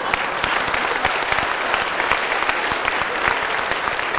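A large audience applauding, with dense, steady clapping from many hands.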